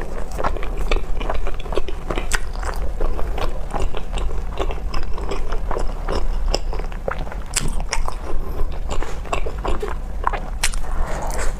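Close-miked biting and chewing of bread, with many sharp wet mouth clicks and smacks.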